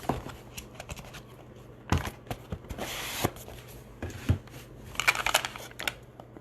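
Trading-card box being opened and handled: tearing and crinkling of wrapping, with scattered clicks and knocks of cardboard and plastic, and rustling bursts about two and five seconds in.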